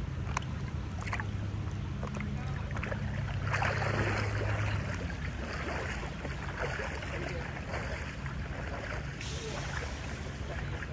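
Pool water splashing and sloshing from a swimmer's arm strokes, with a louder swell of splashing about four seconds in. A steady low hum underneath stops about five seconds in.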